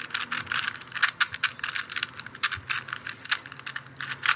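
Plastic Rubik's cube being turned quickly by hand: layers clicking and rattling in rapid irregular bursts, several clicks a second, as the last layer of the solve is finished.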